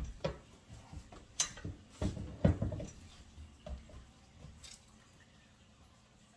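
Scattered knocks and thumps of a person moving about and handling things, with footsteps, the loudest thump about two and a half seconds in; the last two seconds are quiet room tone.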